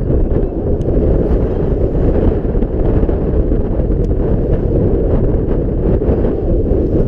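Wind buffeting the microphone: a loud, steady low rumble, with a few faint ticks.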